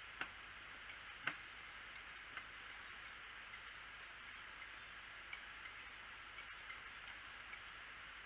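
Wire whisk stirring thick soap batter in a ceramic slow-cooker crock, with a few sharp, irregular clicks as the whisk knocks the crock's side, over a faint steady hiss.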